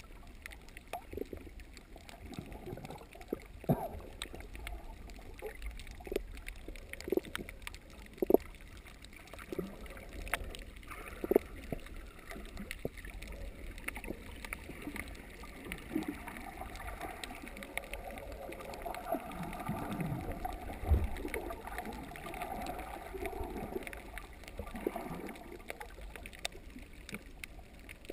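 Muffled underwater sound heard through a submerged camera: a low, steady water rumble with irregular soft clicks and knocks scattered throughout.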